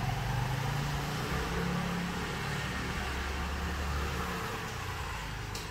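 Steady low mechanical hum with a shifting low drone, and a light click near the end.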